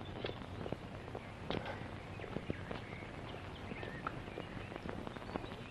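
Steady hum and hiss of an old film soundtrack, with scattered clicks and a few short high chirps.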